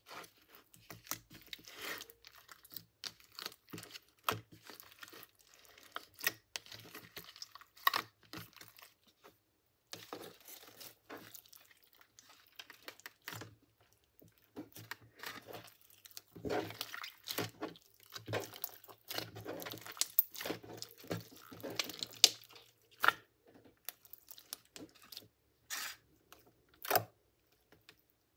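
Thick glossy slime being pulled, pressed and kneaded by hand, giving a steady stream of irregular sticky clicks, crackles and small pops, thickest in the second half.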